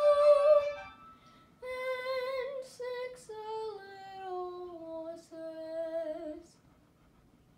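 A girl singing solo: a long held note that ends about half a second in, then, after a short breath, a phrase that steps down in pitch and ends about a second before the end.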